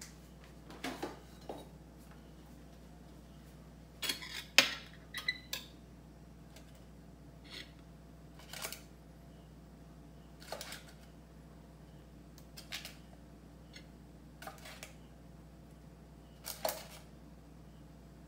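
Scattered clinks and clatters of metal chopsticks and tableware at a dinner table, the loudest cluster about four seconds in. A faint steady hum runs underneath.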